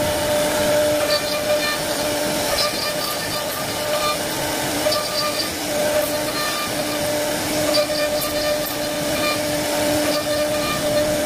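CNC wood-carving router running, its spindle giving a steady pitched whine over a continuous rush of cutting noise. The whine weakens and returns a few times.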